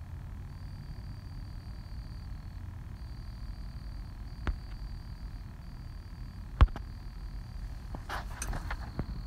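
Background noise of a home voice recording: a steady low rumble with a faint high whine that breaks off now and then. Two sharp clicks come about four and a half and six and a half seconds in, the second the loudest, then a short cluster of clicks and rustling near the end.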